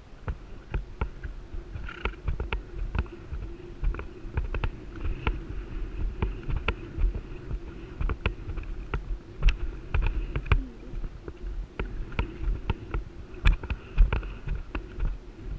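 A horse's hooves drumming on a sand arena at a canter, a quick steady run of dull thuds about three a second, over a constant low rumble of wind on the camera's microphone.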